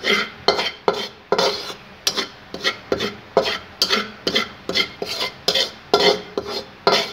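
Metal slotted spatula scraping and stirring dry flour around a metal pan in quick repeated strokes, about two to three a second, as the flour is dry-roasted until lightly golden.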